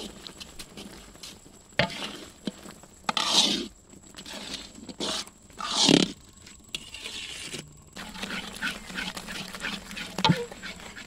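A long metal ladle stirs thick orange pickle in a wide metal karahi, scraping and clinking against the pan. There are louder scrapes about three and six seconds in, and a run of quick small scrapes near the end.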